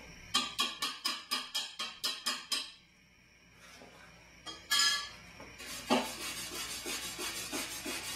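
Slag being chipped off a fresh arc weld on a cracked steel bench vise: a quick run of about a dozen sharp metal taps, a single tap a couple of seconds later, then a faster run of lighter strokes about six seconds in.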